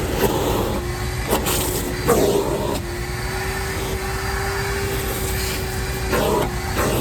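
Shop vac running with a steady motor whine, broken by a few short, harsh scraping bursts, the longest about two seconds in.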